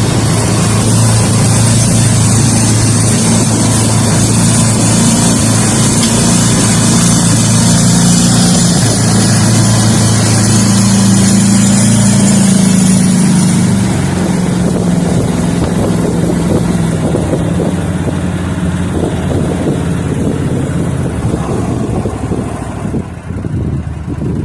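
Boat engine running at speed, with rushing wind and water noise. About halfway through the rush drops away and the engine eases off, slowing further near the end.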